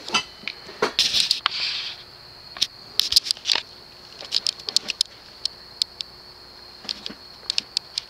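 Early-1980s CEC-built Broan ceiling fan with a cast-iron motor, running quietly in reverse. A steady high whine runs through, with scattered light clicks and ticks at irregular intervals.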